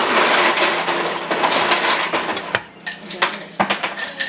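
Kitchen knife cutting and separating a baked flatbread pizza on a parchment-lined metal baking tray: a crackly scraping rustle of crisp crust and baking paper, then several sharp clinks and knocks of the knife and tray in the last second or so.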